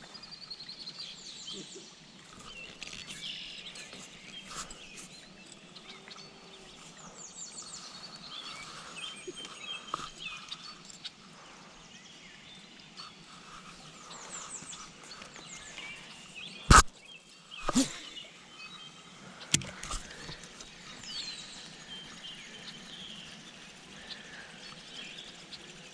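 Wild birds chirping and singing, with quick trills and short falling whistles throughout. A few sharp knocks come about two-thirds of the way through and are the loudest sounds.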